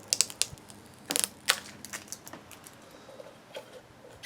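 Thin protective plastic film being peeled and handled on a new audio interface, with irregular sharp crackles and clicks coming in short clusters.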